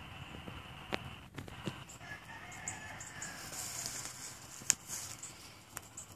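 A rooster crowing once, about two seconds in, a call that falls in pitch at its end, with a few sharp clicks and some high chirps.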